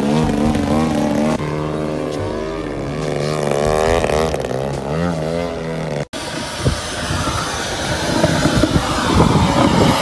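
Engine of a radio-controlled aerobatic airplane, its pitch rising and falling as the throttle and manoeuvres change. It cuts off abruptly about six seconds in, and a rougher, noisier engine sound follows as the plane hangs nose-up.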